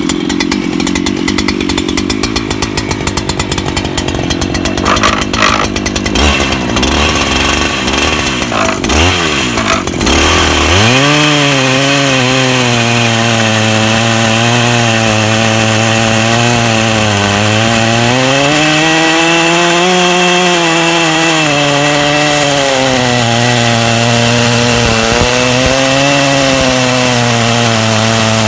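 Two-stroke chainsaw on a portable chainsaw mill, running at low, uneven revs and then opened up about ten seconds in to full throttle. Its pitch sags and recovers under load as it rips a log lengthwise into a plank with a freshly sharpened new chain.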